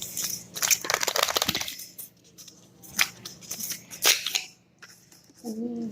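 Cosmetic packaging being handled and opened: a run of rapid crackling clicks lasting about a second, then a couple of single sharp clicks.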